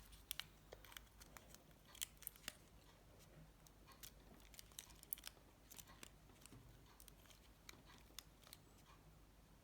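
Faint scattered clicks and taps of small plastic parts of a Nokia 7373 phone being handled and snapped together in its housing during reassembly.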